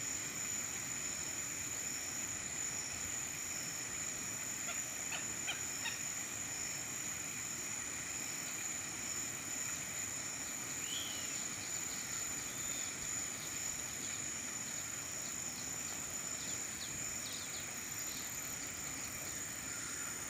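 Southern lapwings (quero-quero) giving short harsh calls a few times, about five seconds in and again near the end. Under them runs a steady high-pitched drone of insects.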